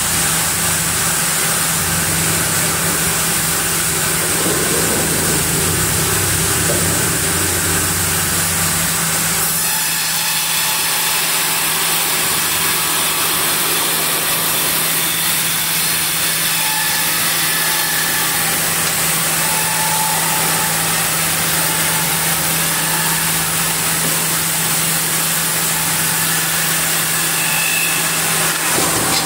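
Log band sawmill running, its blade cutting lengthwise through a large camphor log as the carriage feeds it: a steady machine drone with a low hum under a dense hiss, changing in tone about ten seconds in.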